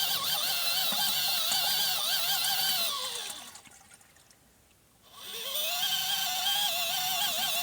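Kmart 12 V portable foldable washing machine running a wash cycle: a wavering motor whine over churning water. About three seconds in it winds down to a stop, pauses for over a second, then winds back up as the tub reverses direction.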